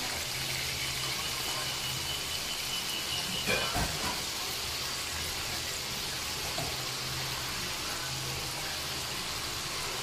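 Oil sizzling steadily in a frying pan, with a short clatter of knocks about three and a half seconds in.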